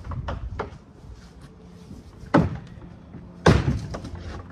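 Hollow plastic shed panels knocking and clattering as they are handled and stood upright: a few light knocks near the start, then two sharp thumps, one a little past two seconds in and a louder one about a second later.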